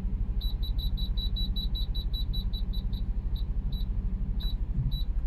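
Dometic microwave oven's keypad beeping as its cooking timer is set: a quick run of short, high, identical beeps, about five a second, then a few single beeps spaced apart. A steady low hum runs underneath.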